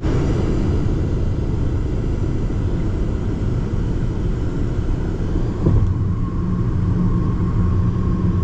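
Car travelling at highway speed, heard from inside: a loud, steady rumble of road and wind noise. About six seconds in, a steadier low hum joins it.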